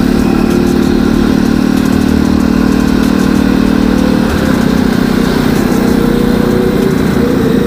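Motorcycle engine running at a steady cruise, heard from on board the moving bike with wind rushing over the microphone; the engine note changes about four seconds in.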